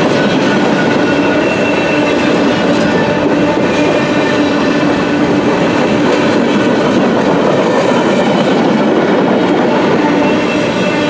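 Cars of a mixed freight train (covered hoppers, boxcars, tank cars) rolling past close by: a steady, loud rolling noise of steel wheels on the rails, with a few faint steady high tones over it.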